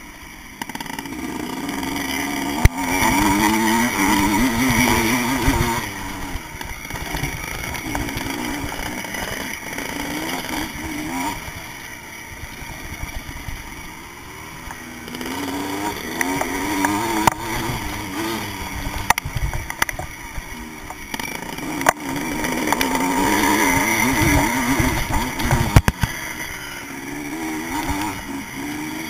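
Vintage motocross bike's engine, heard close up from a camera on the bike, revving hard and then easing off in turn as the rider opens and closes the throttle around the track. Several sharp knocks cut through it.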